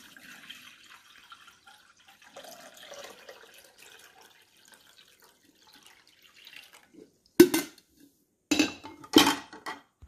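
Water pouring steadily from a glass coffee-maker carafe into a glass measuring cup. Then three loud knocks in the last few seconds as the glassware is set down on the stone countertop.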